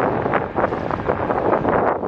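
Wind buffeting the microphone in gusts, a loud rushing noise that swells and dips unevenly.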